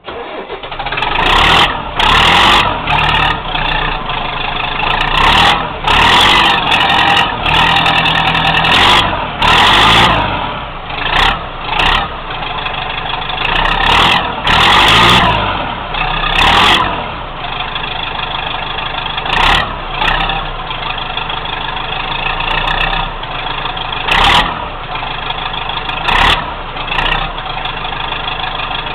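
Massey Ferguson 4235 tractor's four-cylinder diesel engine on a straight-pipe exhaust starting, then revved in repeated throttle blips for about fifteen seconds before settling into a steady idle, with three short blips later on.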